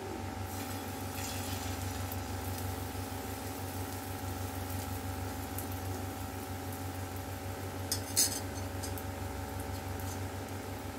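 Beaten egg hitting a hot oiled iron griddle and sizzling lightly over a steady hum. About eight seconds in, a steel ladle clinks twice in quick succession.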